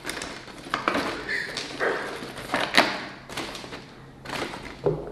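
Small plastic fruit pieces clicking and rattling in a plastic tray as a toy pig nose roots among them, with scattered sharp knocks and rustling.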